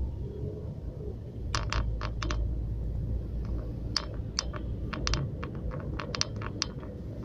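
Low rumble inside a moving car, with a string of irregular sharp clicks and taps, about twenty of them, from about a second and a half in.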